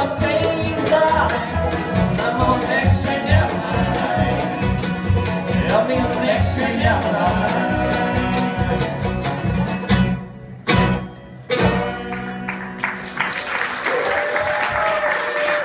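Live bluegrass band playing, with banjo, mandolin, fiddles, acoustic guitar and upright bass over a steady bass beat. About ten seconds in the sound briefly thins and drops away, then comes back.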